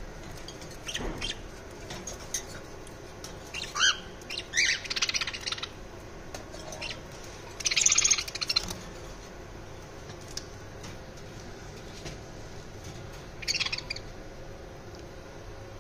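Caged parrots (budgerigars, cockatiels and a ring-necked parakeet) giving scattered short chirps and squawks, with quiet gaps between. The loudest is a harsh, noisy call about eight seconds in, and there is a rising call about four seconds in.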